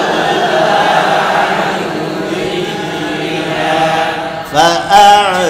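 A large group of male students recites a Quran verse together in unison, a chant of many overlapping voices. Near the end a single man's voice takes over alone, reciting with a falling melodic line.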